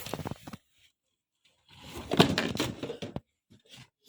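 Knocks and clatter of small hard objects being handled, in a dense run through the middle after a quiet pause, with a few short clicks before and after.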